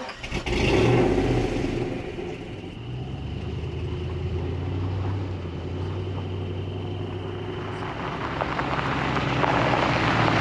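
Vehicle engine running at low revs, getting louder near the end.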